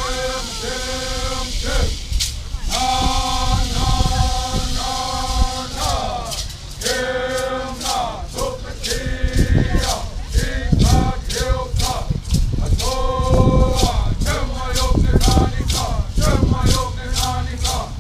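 A group singing a traditional Cupeño (Kupa) song together in held notes about a second long, with a rattle shaken in a steady beat that is strongest in the second half.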